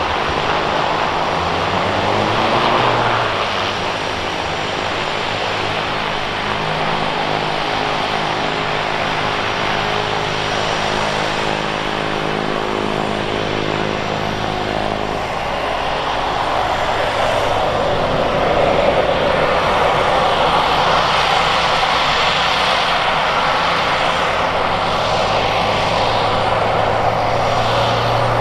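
Walter M601 turboprop of a Turbine Legend kit plane running at taxi power, with its three-bladed propeller turning. The sound is steady and grows a little louder in the second half as the plane taxis.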